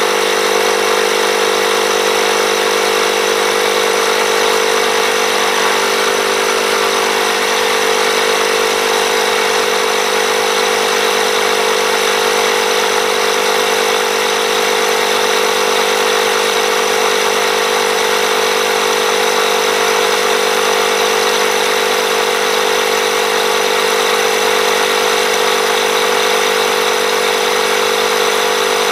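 Black & Decker 20V MAX cordless inflator's battery-powered compressor running steadily, a loud, even drone with a hum, as it pumps up a lawnmower tire toward a 10 PSI preset.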